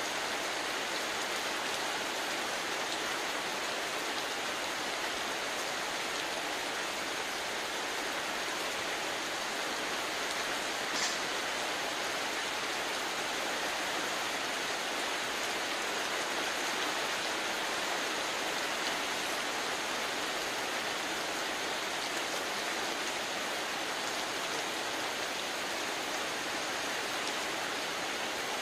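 Heavy rain falling steadily on river water and a moored boat, an even hiss with no let-up. A single short tick stands out about eleven seconds in.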